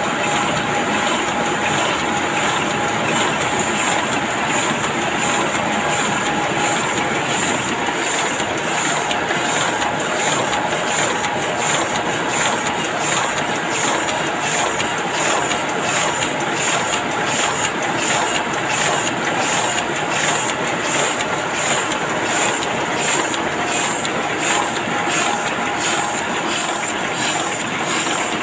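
Heidelberg two-colour sheetfed offset press running: a steady mechanical clatter of rollers and sheet handling, with a hiss that pulses evenly about twice a second as the sheets cycle through.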